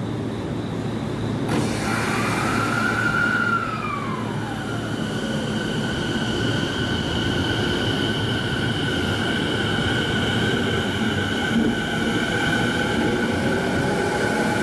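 E217-series electric train pulling away from the platform. Its motors whine with a high tone that dips in pitch about two seconds in, then settles into steady high tones over the running rumble as it gathers speed, with a lower tone rising near the end.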